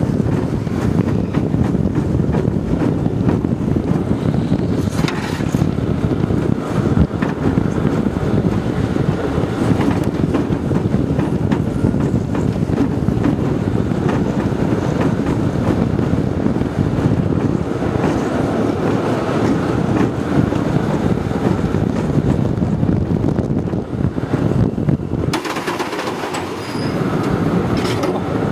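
Olympia Looping roller coaster train running at speed over its steel track, heard from on board: a steady, loud rumble of the wheels on the rails. Near the end the low rumble briefly drops away, then the noise picks up again.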